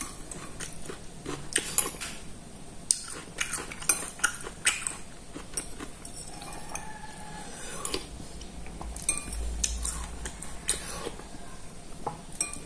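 Metal spoon clinking and scraping against a ceramic soup bowl in irregular, separate clicks as soup is spooned up.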